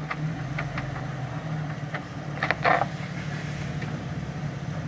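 Jeep Wrangler's engine running at low, steady revs as it crawls slowly over rocks and mud, with a few short knocks and a louder crunch about two and a half seconds in.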